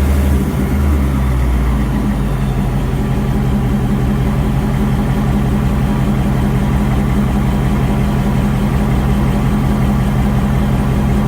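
2019 Ford Mustang GT's 5.0 V8 running, its pitch rising in the first second and then held steady at raised revs, with a constant clanky ticking. The ticking is one that the mechanic, going by sound, takes for cylinder 1 scoring rather than the normal barbecue tick.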